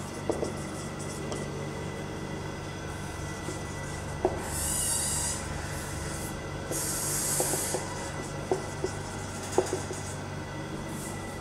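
Marker pen writing on a whiteboard: short scratching strokes and taps, with two longer, higher hissing strokes in the middle. A steady low hum runs underneath.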